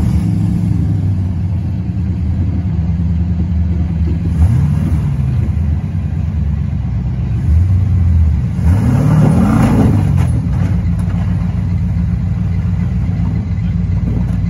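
Rock buggy's engine running under a steady engine drone, with two short revs that rise and fall in pitch, about four and nine seconds in, the second louder, as it pulls itself up a rock ledge.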